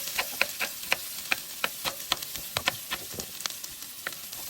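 Potatoes frying in butter with onion, sizzling in a steady hiss broken by irregular sharp crackling pops, several a second.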